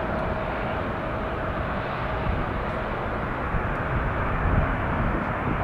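Boeing 747 jet engines, a steady rushing noise with a faint whine, growing slightly louder toward the end.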